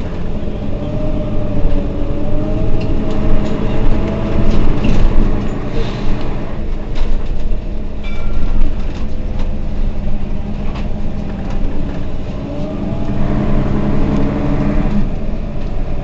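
Mercedes-Benz Citaro Facelift city bus running under way: a steady diesel drone with scattered rattles and knocks. A whine rises in pitch twice, about a second in and again from about twelve seconds.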